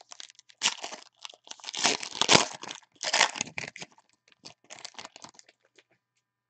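Foil football trading card pack wrapper being torn open and crumpled by hand: a run of sharp crinkling tears, loudest about two seconds in, thinning to lighter crackles near the end.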